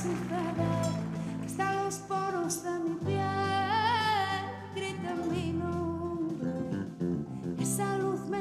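A woman singing lead in a Spanish pop song, backed by a band. About four seconds in she holds a long, wavering note.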